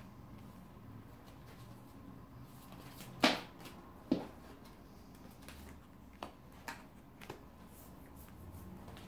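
Tarot cards being drawn from the deck and laid down: a handful of short, sharp card snaps and taps, the two loudest about three and four seconds in, then three softer ones a few seconds later.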